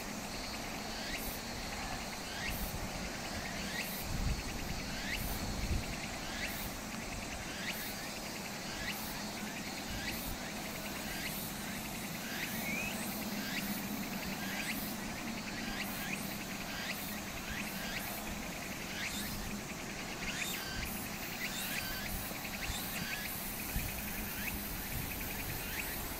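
Insects calling, short chirps repeating about once a second over a steady low hum.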